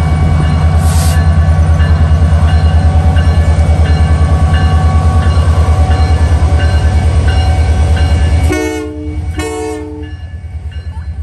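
Canadian Pacific GP20C-ECO diesel locomotive rolling past close by, its engine and wheels making a heavy low rumble that throbs rapidly and evenly. About eight and a half seconds in, the horn sounds two short blasts, and then the rumble falls away as the locomotive moves off.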